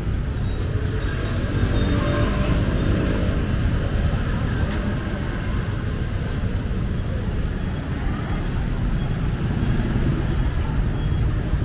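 Street traffic: motor vehicles running past with a steady low rumble, and one engine's hum briefly standing out about a second in.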